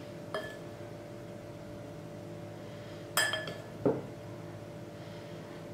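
Kitchenware clinking while filling is served onto dough: a light clink, then just after three seconds a louder, ringing clink followed by a duller knock.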